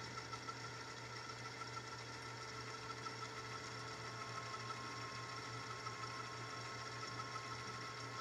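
VCR rewinding a VHS tape: the steady whir of its reel motor and tape transport, with a thin high whine held throughout.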